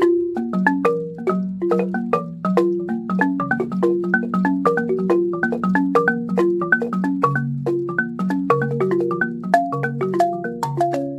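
Siamou balafon played with mallets: a fast, steady stream of wooden struck notes, with a repeating low bass figure under quicker higher notes.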